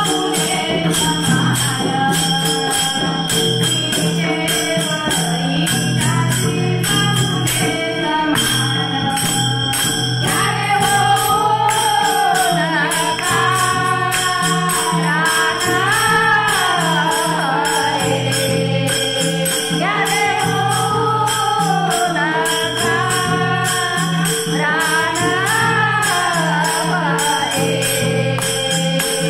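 Warkari bhajan: voices singing a Marathi devotional song over a steady, quick beat of small metal hand cymbals (taal).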